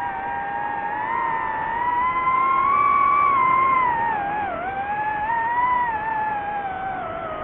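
DJI FPV drone's propeller motors whining, the pitch climbing for the first few seconds, dipping sharply about four and a half seconds in, then rising and easing again as the throttle changes.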